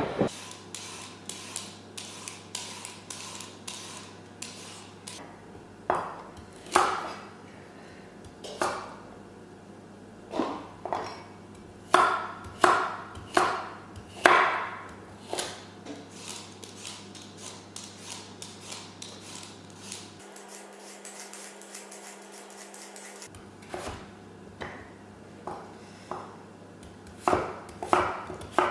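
Kitchen food-preparation sounds: irregular knocks and clinks of utensils and dishes on a board and counter, some ringing briefly, busiest a little before the middle. A faint low hum runs underneath.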